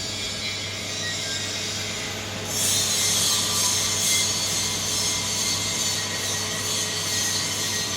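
TIG welding: a steady electrical hum from the welder, joined about two and a half seconds in by the louder, even hiss of the welding arc, which keeps going.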